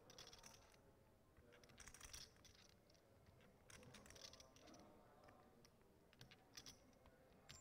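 Faint clicking and clattering of poker chips being handled at the table, in short bursts of clicks about every two seconds.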